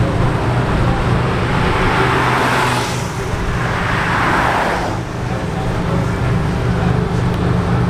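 Car engine idling with a steady low drone, while a rushing noise of passing traffic swells up twice, about two and four seconds in.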